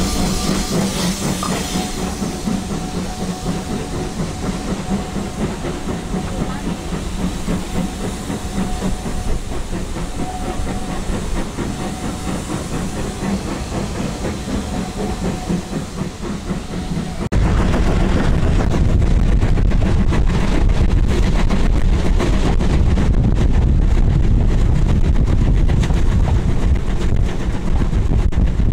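BR Standard Class 2 steam locomotive 78022 hauling a train, heard from a carriage window: a steady running noise of the train on the rails with steam hissing. About two-thirds of the way through it cuts suddenly to a louder, deeper rumble.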